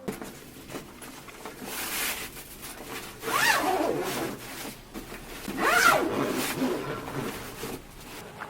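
Two drawn-out animal calls, about two seconds apart, each rising and then falling in pitch, over a rustling noise.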